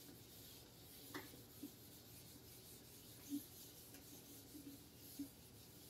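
Faint rubbing of a handheld eraser wiping marker off a whiteboard, with a few soft knocks.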